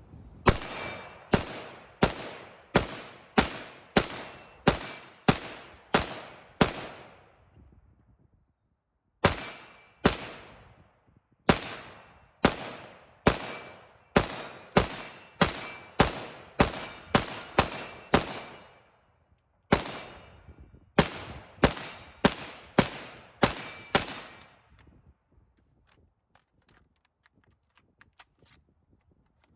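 PSA AK rifle firing rapid single shots, about one and a half a second, in three strings of roughly thirty rounds in all, with short pauses between strings and no stoppages. A few faint clicks follow near the end.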